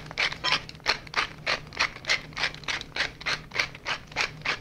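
Hand-twisted pepper mill grinding peppercorns: a short rasping crunch with each twist, about three a second in an even rhythm.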